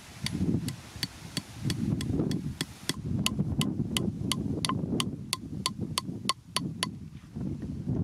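Metal hammer driving a nail into the end grain of a freshly cut log with quick, even blows, about three a second; from about halfway through, each blow rings with a metallic ping. The blows stop about a second before the end, with wind rumbling on the microphone throughout.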